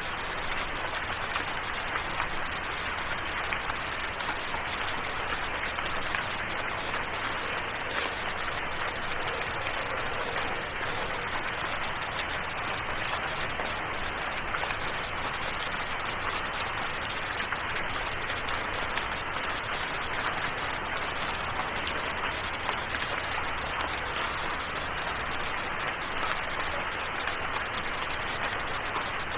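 Steady, even rain falling, a continuous hiss with fine scattered drop ticks.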